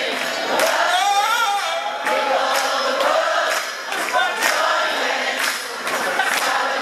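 Live soul-pop band playing, with several voices singing together over a steady beat of about two strikes a second. Audience noise sits underneath.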